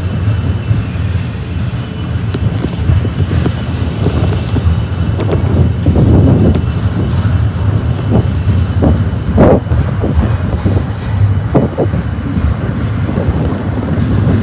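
Double-stack container train of BNSF well cars rolling past: a loud, steady rumble of wheels on rail, with irregular clanks and knocks from the cars through the middle, the sharpest about halfway through.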